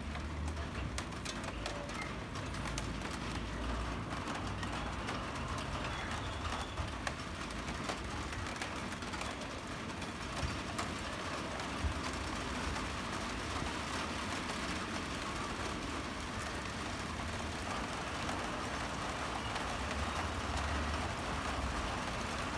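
Steady outdoor background noise with an uneven low rumble and a few faint ticks.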